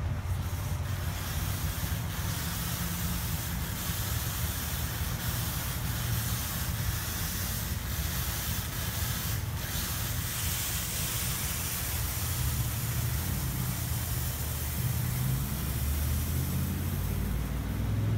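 Ryko SoftGloss MAXX rollover car wash spraying water over a car: a steady hiss with a low rumble underneath.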